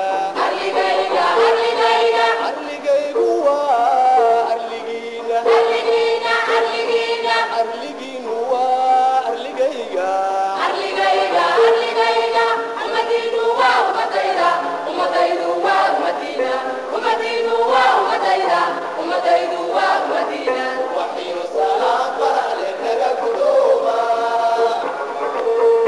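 Somali choir of men and women singing a song together, with long held notes.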